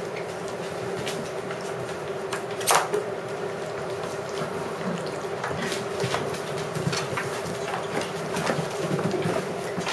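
Puppies playing on a tiled floor: scattered clicks and knocks of claws and a plastic bowl on the tile, over a steady hum. One sharper, louder knock comes about three seconds in.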